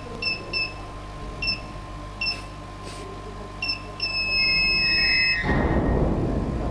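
Electronic beeper sounding several short beeps at uneven intervals, then one long beep lasting over a second. As the long beep ends, a loud rushing machine noise comes in.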